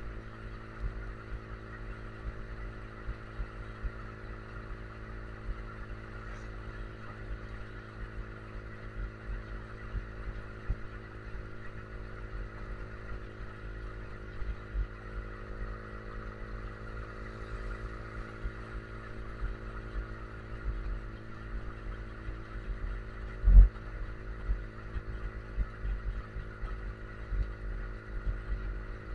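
Yamaha R15 V3's 155 cc single-cylinder engine running at steady cruising revs, with wind buffeting on the microphone. A single loud thump about three-quarters of the way through.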